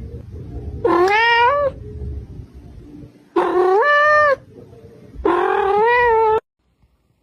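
A domestic cat meowing loudly three times, each call a long, drawn-out yowl about a second long that rises in pitch. The last call wavers and stops abruptly.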